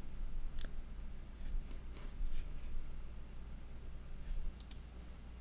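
Faint scattered rustling and light clicks of someone handling cabinet parts, over a low steady hum.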